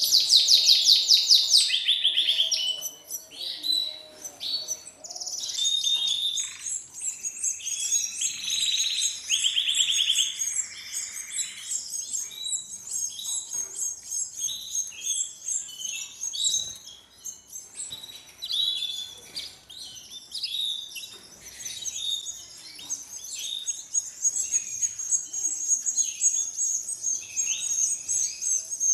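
Canaries chirping and trilling without pause, with the high, rapid begging calls of canary nestlings gaping for food. A lower, buzzy trill comes in about eight seconds in.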